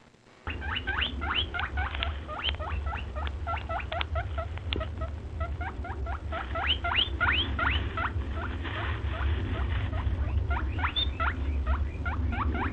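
Small birds chirping: a fast run of short, rising squeaky calls, several a second, starting about half a second in, over a steady low rumble.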